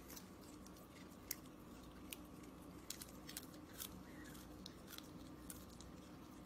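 A long-haired cat biting and chewing a raw green leaf: faint, irregular crisp crunches and snaps.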